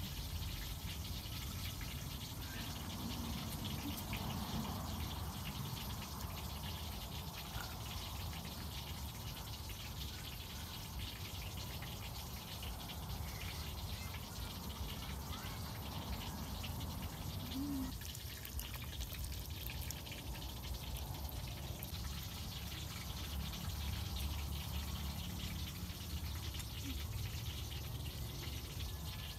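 Wet chewing and mouth sounds of someone eating steamed enoki mushrooms, with small clicks and taps throughout.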